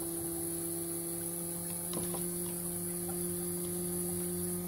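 BMW K75 electric in-tank fuel pump running with a steady hum. About two seconds in the hum shifts slightly as vacuum is pulled on the fuel pressure regulator, which raises rail pressure and changes the pump's rate of pumping.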